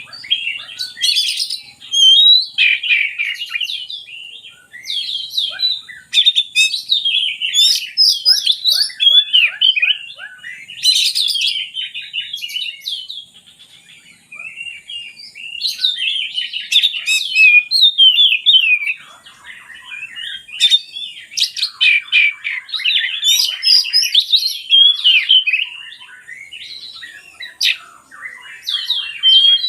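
Oriental magpie-robin (kacer) singing a long, varied song of rapid whistles, trills and chattering phrases, in bursts broken by short pauses.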